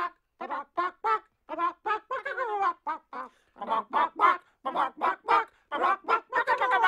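Rapid chicken-like clucking: short pitched clucks about three or four a second, going on without a break.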